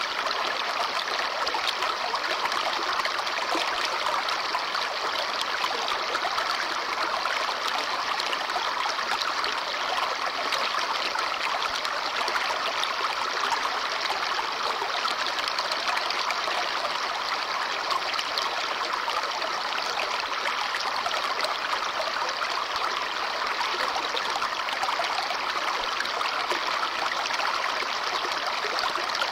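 Babbling brook: a stream of water running over stones, a steady rushing and trickling.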